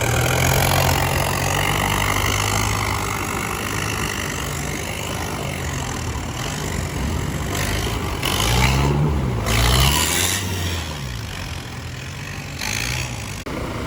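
Off-road 4x4's engine running steadily, then revving up and back down about nine seconds in.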